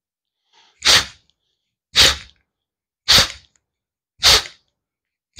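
A person's sharp, forceful exhalations, four of them at about one a second, done as virechan kriya, a yogic cleansing breath that throws the breath out under pressure like a sneeze.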